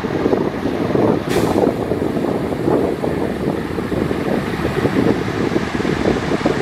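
Heavy diesel earthmoving machinery running steadily under load, with a short hiss about a second in.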